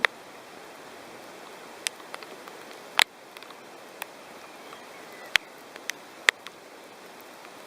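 Steady hiss with scattered sharp ticks at uneven intervals, typical of raindrops striking a hard surface during a thunderstorm. There is no thunder.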